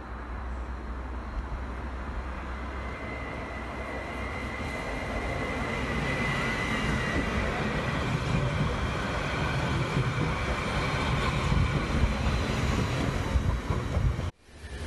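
Stadler FLIRT electric commuter train (HSL Sm5) coming into the station and passing close by, the rumble of its wheels on the rails growing louder as it comes. A high steady whine is heard for a few seconds near the start, and the sound cuts off suddenly near the end.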